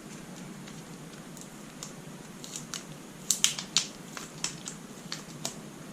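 Sharp little clicks and taps of hands and tools working the hard drive loose inside an opened laptop, scattered through the second half and loudest around three and a half seconds in, over a faint steady hiss.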